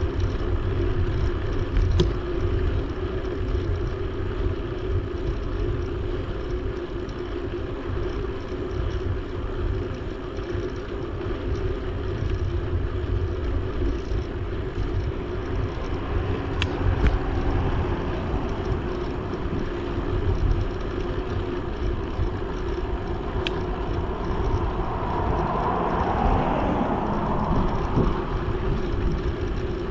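Wind rushing over the microphone of a bicycle rider in motion on a Dahon Mu D10 folding bike, over a steady rolling hum from the tyres on the paved bike lane. A few sharp ticks, and a louder rush swells up near the end.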